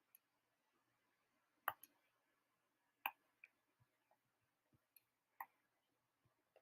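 Near silence broken by a few faint, sharp clicks, three of them more distinct than the rest, a second or two apart.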